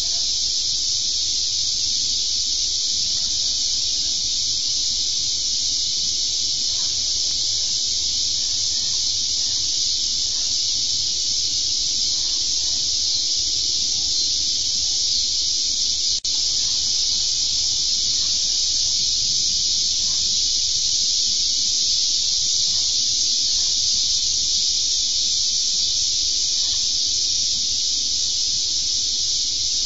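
Steady, high-pitched insect chorus, an even hiss with no breaks, with one brief dropout about halfway through.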